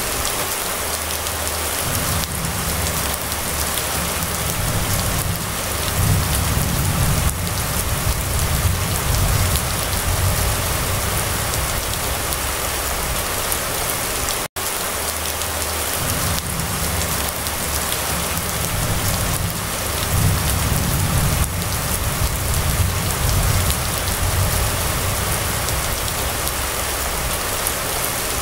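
Steady rain falling on a wet street, an even hiss, with a low rumble underneath that swells and fades. The sound cuts out for an instant about halfway through.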